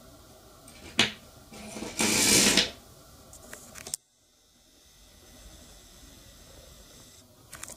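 A click as the dry-cell battery with neodymium magnets on its ends is set into the bare copper wire coil, then a rattle of about a second as this simple electromagnetic train runs along the coil, its magnets scraping over the wire turns. A few small clicks follow.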